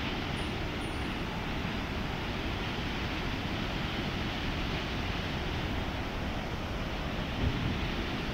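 A large waterfall rushing steadily: a heavy volume of white water pouring over a rock ledge into a gorge, giving an even, unbroken rushing noise.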